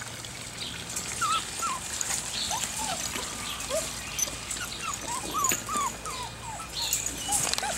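A litter of young puppies whimpering: many short, high squeaks, one after another and overlapping, starting about a second in.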